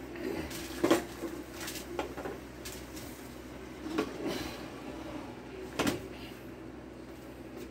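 Metal cooking pan clattering on an electric stovetop as it is shifted off the burner by its handle: a series of separate sharp knocks, the loudest about a second in and again near six seconds.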